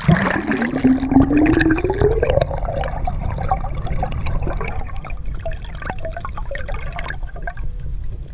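Water heard from a microphone that has just gone under the surface: a loud rush of bubbles and churning water with many small pops and ticks. A low hum rises in pitch over the first two seconds, and the rush settles into a steadier, quieter wash.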